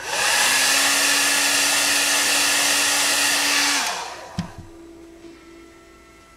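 Handheld hair dryer blowing steadily with a constant hum, switched off after nearly four seconds and winding down, followed by a single click. It is being used to warm masking tape on a painted panel so the tape peels off without leaving residue.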